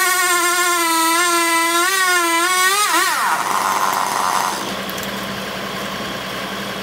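Chainsaw running at full throttle, cutting into a redwood trunk, its pitch dipping and recovering under load. About three seconds in the throttle is released and the note falls steeply to a quieter, lower idle.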